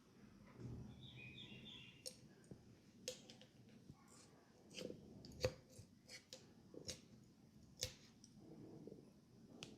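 Faint handling sounds from a barber's head massage: soft rubbing with about half a dozen sharp, scattered clicks and taps, the loudest about five and a half seconds in.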